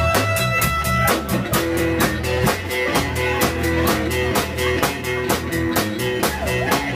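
Live band playing an up-tempo song on drum kit, electric guitars and bass, with a harmonica. The drums keep a steady fast beat.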